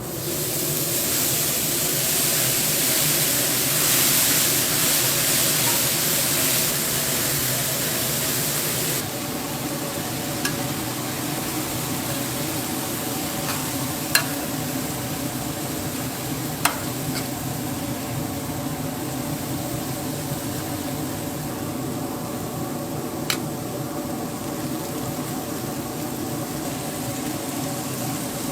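Food sizzling as it fries in hot oil, loudest for the first nine seconds or so, then dropping suddenly to a quieter steady sizzle with a few sharp clicks.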